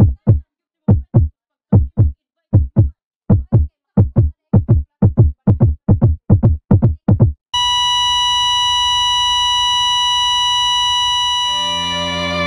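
Heartbeat sound effect: paired lub-dub thumps that come faster and faster, then break off into one steady high electronic tone like a heart-monitor flatline. Soft low music notes come in under the tone near the end.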